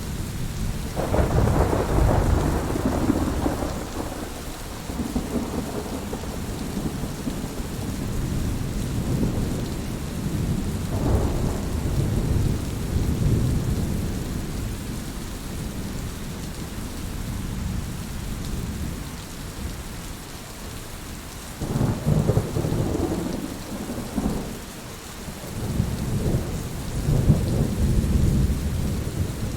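Heavy steady rain with rolling thunder. Low rumbles swell about a second in, again around eleven seconds, and twice more in the last third.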